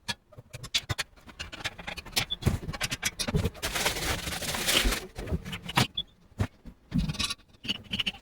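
Fast-forwarded handling and fitting of stove parts during assembly: a quick run of clicks, knocks and scrapes, with a longer stretch of rustling around four seconds in.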